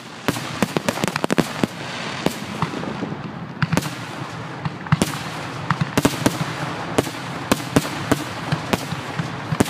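Fireworks finale barrage: aerial shells bursting in quick, irregular bangs, several a second, over a constant noisy wash from the overlapping reports.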